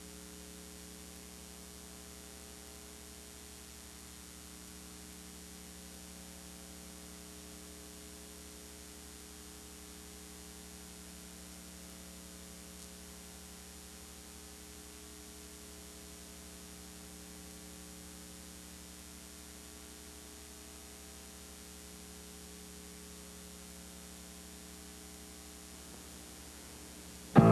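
Steady electrical mains hum with faint hiss on the audio track of a VHS tape transfer. Music comes in right at the end.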